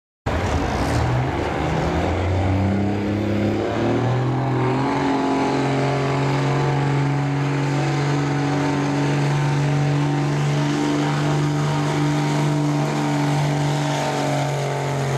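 Dodge Ram pickup's Cummins diesel engine running hard at full load while it pulls a sled. The revs climb in steps over the first few seconds, then hold steady and high.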